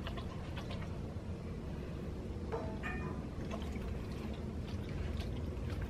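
Corgi puppy lapping water from a metal bowl: scattered wet laps and small splashes over a steady low hum.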